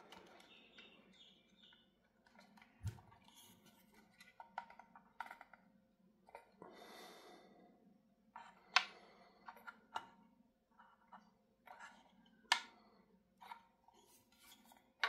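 Faint, scattered clicks and scrapes of a miniature 5654 vacuum tube being pushed and rocked into a stiff socket on a small tube preamp. A few sharper clicks come about nine and twelve seconds in.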